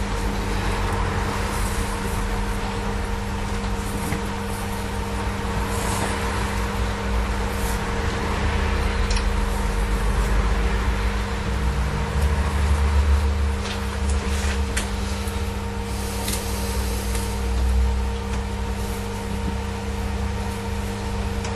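A steady machine hum with a low rumble underneath, like a motor or fan running, with a few light clicks and rustles as the wiring loom and cloth tape are handled.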